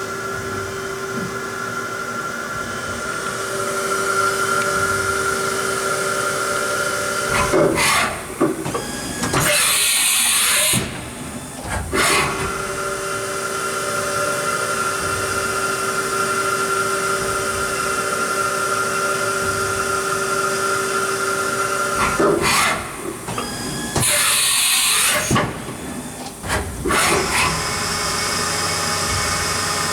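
Haas Super Mini Mill CNC vertical machining center running a program without cutting: the spindle and axis drives give a steady whine. Twice the whine stops for a tool change, with knocks and a loud hiss of air lasting about a second and a half. Near the end it resumes at a different pitch.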